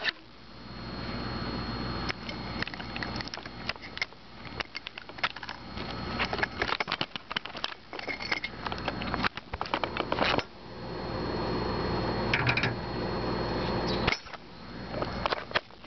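Handling noise from the drone's onboard camera being picked up and moved: irregular knocks, bumps and rubbing, with two stretches of steady hum and a faint high whine that swell in and cut off abruptly.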